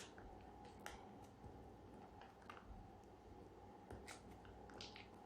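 Near silence: faint room tone with a few soft scattered clicks, about a second in and twice near the end.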